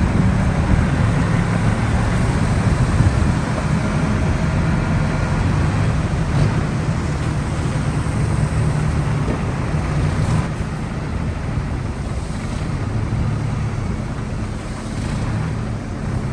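Heavy earthmoving machine's diesel engine running steadily under work, a deep steady hum that eases a little from about ten seconds in.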